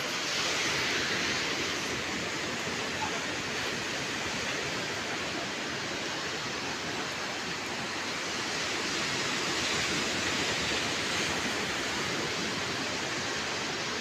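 Surf breaking on a sandy beach, heard as a steady rushing hiss that swells slightly now and then.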